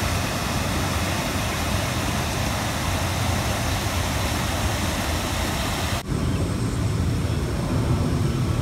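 Water pouring over a small weir into a paved drainage channel, a steady splashing rush. About six seconds in it cuts to a duller, lower rush of water running down the channel.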